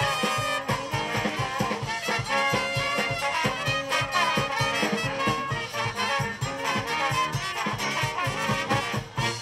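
Live brass band playing an up-tempo tune: trumpets, trombone, saxophone and sousaphone over a steady drum-kit beat.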